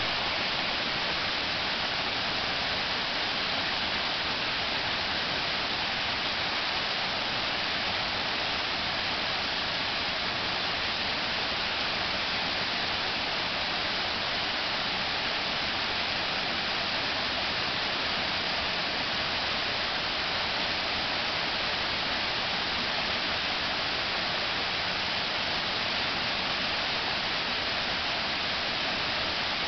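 Waterfall: a steady rush of falling water, more hiss than rumble, unchanging throughout.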